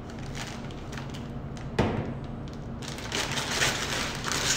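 A disposable plastic piping bag crinkling and rustling as caramel is scraped into it from a stainless steel bowl with a spatula. A single sharp knock comes about two seconds in, and the crinkling is densest near the end. A steady low hum runs underneath.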